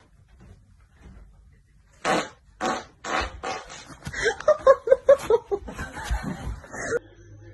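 A person farting, with laughter mixed in: after a quiet start, a string of short bursts begins about two seconds in, then a quick run of pitched pulses.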